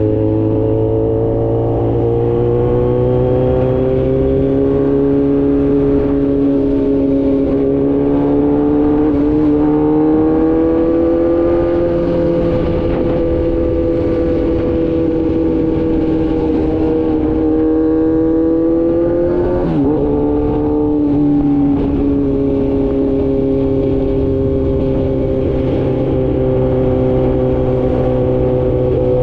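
Kawasaki Z900 inline-four engine running through an Austin Racing full exhaust at a steady cruise. The pitch climbs slowly and holds, drops briefly about two-thirds through, then settles again.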